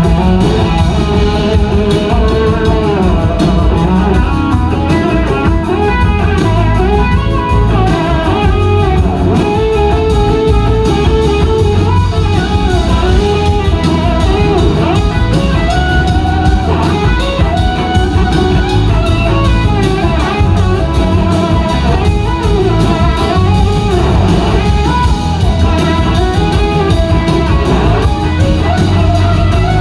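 Live blues-rock band playing an instrumental passage: an electric slide guitar plays gliding lead lines over a second electric guitar, bass and a drum kit.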